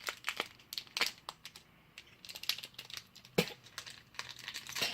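Irregular light clicks and crinkling from hands handling a smartphone and small items on a workbench.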